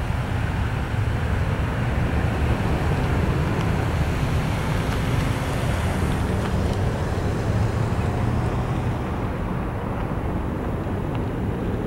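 Airbus A320's jet engines at takeoff thrust as it climbs away, a steady low rumble. The higher part of the sound thins out near the end as the jet draws farther off.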